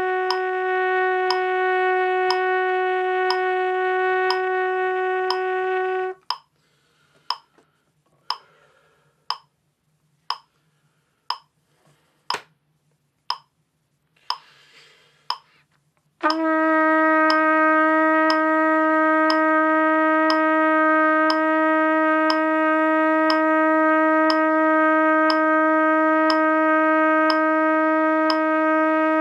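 A trumpet holds a steady long tone that cuts off about six seconds in. A metronome clicks about once a second through a rest of roughly ten seconds, with a breath drawn near its end. The trumpet then comes back on a slightly lower long tone, held steady: long-tone practice.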